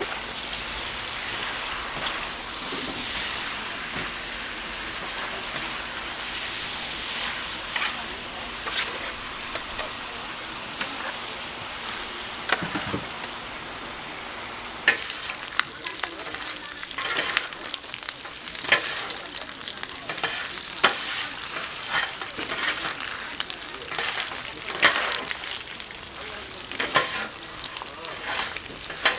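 Pork offal sizzling on a large iron griddle: a steady frying hiss with frequent short clicks and scrapes as the meat is stirred and turned.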